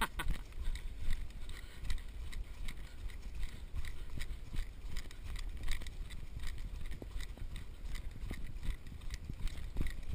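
Running footsteps on a dirt forest trail: quick, even footfalls over a steady low rumble.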